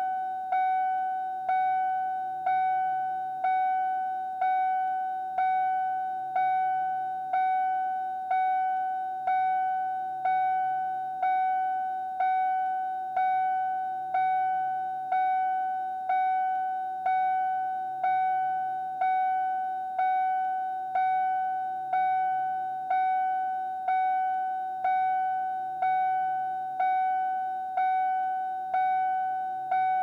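Car door-ajar warning chime: a single-pitched electronic ding repeating at an even pace about once a second, each note starting sharply and dying away.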